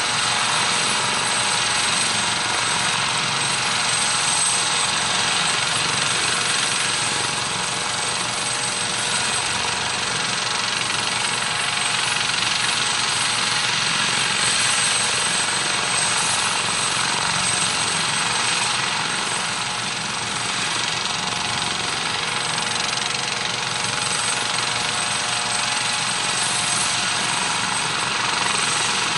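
Eurocopter AS565K2 Panther military helicopter running steadily at close range: the whine of its twin turbines and Fenestron tail rotor over the rapid chop of the main rotor.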